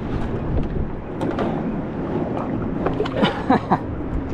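Steady wind rumble on the microphone on an open boat deck, with scattered light knocks and small water sounds as a bass is lowered over the side back into the lake. A short voice sound comes a little after three seconds in.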